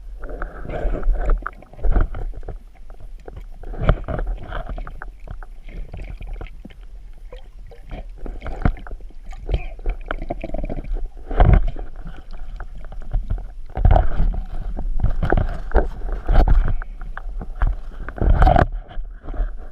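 Water sloshing and gurgling around a spearfisher's camera in a river, coming in irregular surges with a deep rumble.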